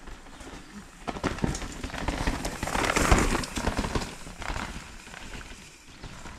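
A mountain bike riding past on a rocky dirt trail, its tyres crunching and rattling over stones. The sound grows louder to a peak about three seconds in, then fades as the bike rides away.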